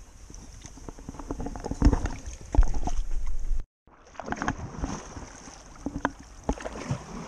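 Paddles dipping and splashing in river water beside an inflatable paddleboard, with a few loud knocks from the action camera being handled and moved. The sound cuts out completely for a moment about three and a half seconds in.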